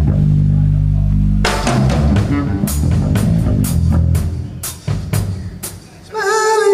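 A rock band's bass guitar holds a low note, then about a second and a half in a drum kit comes in with loose, irregular hits on the drums and cymbals, as in a soundcheck. Near the end a wavering held note joins in.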